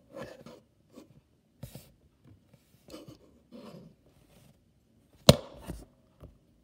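Handling noise from a hard plastic toy truck body: scattered light clicks, taps and rubs, then one sharp knock about five seconds in.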